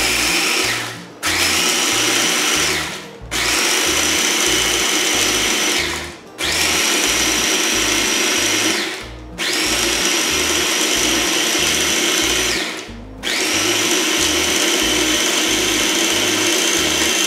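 Electric mini food processor pulsed in about six runs of two to four seconds each, with short stops between, its motor whine steady at speed as it chops crunchy baked cheese crisps into crumbs.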